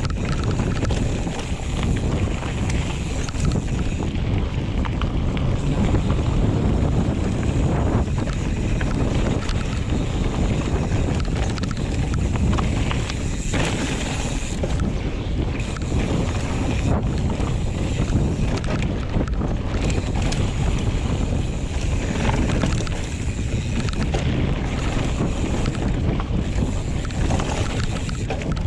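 Wind buffeting a GoPro's microphone during a fast mountain-bike descent, over the steady rumble of tyres on a dirt trail and scattered knocks and rattles from a 2022 Giant Trance X 29 full-suspension bike.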